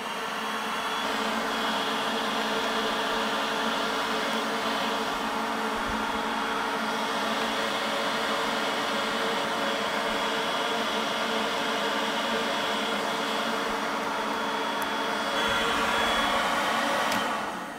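Heat gun running steadily, its fan motor blowing hot air into an exhaust header pipe with a hum and hiss. It is switched off near the end, and the fan winds down with a short falling whine.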